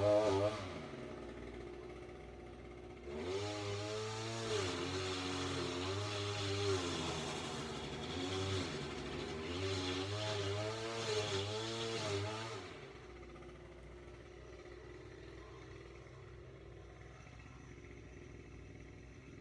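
An engine running, its pitch rising and falling again and again, in two spells; it cuts off about twelve and a half seconds in.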